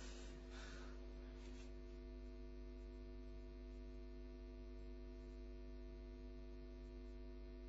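Faint steady electrical hum with a stack of evenly spaced overtones, typical of mains hum in the soundtrack; a faint hiss dies away in the first second or two.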